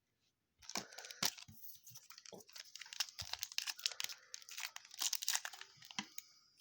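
Foil trading card pack wrapper being torn open and crumpled, a dense crinkling and crackling that runs for several seconds, starting just under a second in.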